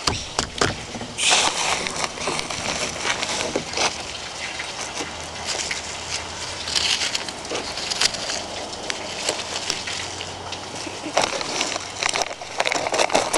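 Hands pressing and patting a mound of crumbly wet mix into a volcano shape: scattered crackles and short rustling bursts, the strongest about a second in, around seven seconds and near the end.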